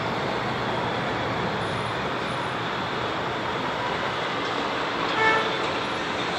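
Steady city street traffic noise, with one short toot about five seconds in.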